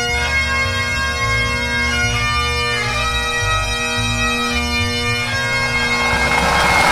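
A pipe band's Great Highland bagpipes playing a tune, with the chanter melody moving over the steady drones. A hiss swells in under the pipes near the end.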